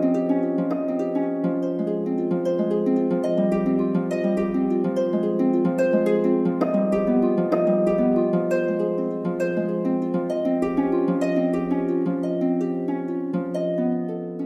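Relaxing background music of plucked harp notes, a steady flow of overlapping notes that ring on.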